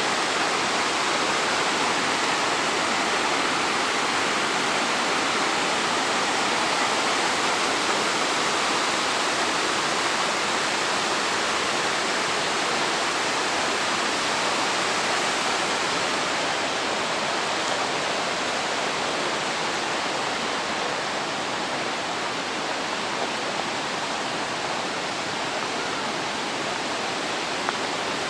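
Waterfall, a steady dense rush of falling water that eases a little in the second half.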